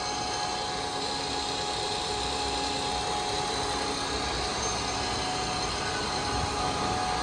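Correa F2UE universal milling machine running with its spindle at its top speed of 1800 rpm: a steady machine hum with a few steady tones, with no extra noise from the spindle.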